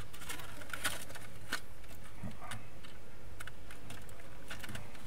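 Irregular light clicks and taps of plastic and metal parts as a PS4 Slim's internal drive and shield assembly is handled and set back into the opened console, over a steady low hum.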